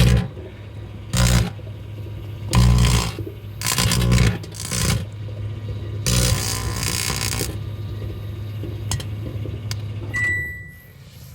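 Microwave oven running with a steady hum while a tinfoil hat inside arcs, giving several loud crackling bursts and a few sharp snaps. About ten seconds in the oven beeps once and the hum cuts off.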